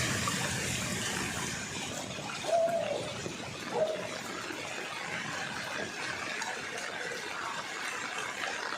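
Floodwater swishing and splashing steadily, with two short hooting calls about two and a half and four seconds in.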